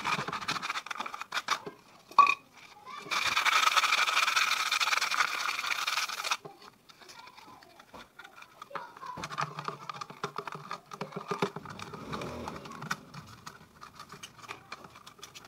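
Hands handling paper and small pieces of tape on a white PVC pipe: rustling and small clicks throughout. About three seconds in, a loud, even rasp lasts roughly three seconds and then stops abruptly.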